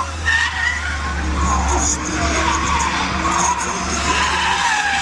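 Car tyres squealing in a skid, a wavering squeal over a steady low drone of engine and road noise.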